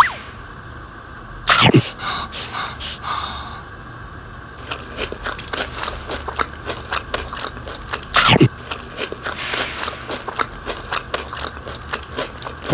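A duck biting and chewing bungeoppang, a run of quick crisp clicks and crunches from its bill on the pastry. Two loud swooping sounds falling in pitch come about a second and a half in and again about eight seconds in.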